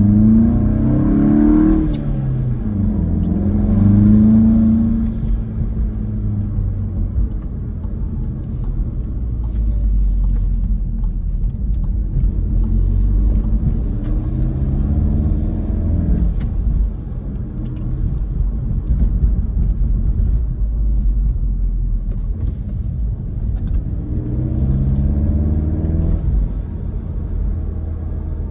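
2018 VW GTI Mk7.5's EA888 2.0-litre turbocharged four-cylinder, fitted with a BMS Elite intake and turbo muffler delete, heard from inside the cabin while driving. The engine note climbs several times under acceleration and falls back between pulls, over a steady low rumble of road and engine.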